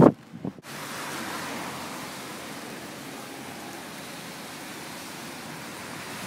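Steady, even rushing of fast-flowing floodwater, starting under a second in after a brief loud burst, and cutting off abruptly at the end.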